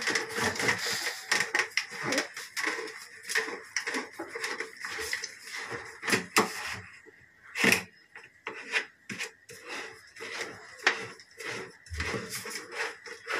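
A plastic flush cistern and its bent PVC flush pipe rubbing, creaking and clicking as they are handled and worked together, with a few sharper knocks about six and eight seconds in.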